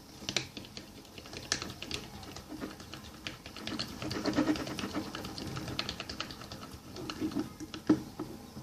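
Plastic spoon stirring freshly activated borax slime in a plastic bowl, making irregular sticky clicks and small taps.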